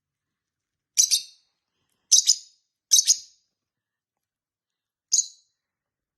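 Pet lovebird giving four short, shrill chirps, most of them quick double notes, the last one after a pause of about two seconds.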